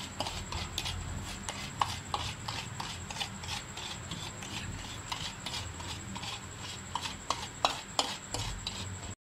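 Metal spoon stirring and beating ghee with powdered sugar in a glass bowl, clinking and tapping against the bowl several times a second. The sound breaks off abruptly for a moment near the end.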